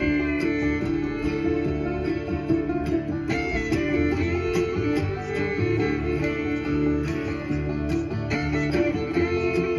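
Background music led by guitar, instrumental, with a steady run of plucked notes.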